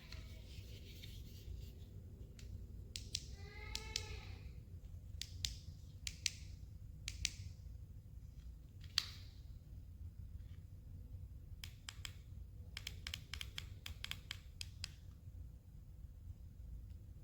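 Faint, scattered clicks of remote-control buttons being pressed, with a quick run of clicks near the end, over a steady low hum. A brief pitched sound with a bending tone comes about four seconds in.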